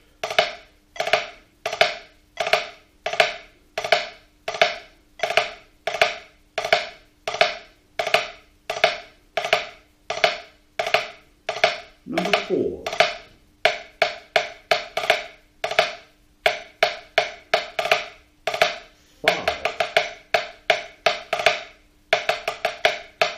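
Wooden drumsticks striking a drum practice pad, playing drag and five-stroke roll rudiment exercises at 85 beats per minute. Even strokes in time, about three a second, give way about halfway through to tight clusters of quick strokes.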